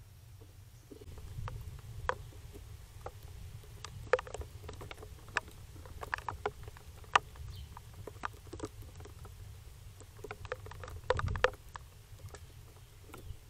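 A squirrel right at the trail camera, making irregular sharp clicks and taps close to the microphone, with a low rumbling bump about eleven seconds in as it brushes against the camera.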